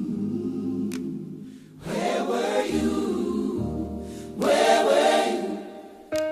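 Gospel choir singing wordless sustained chords over an instrumental accompaniment, swelling in three phrases, in the introduction of a traditional gospel worship song.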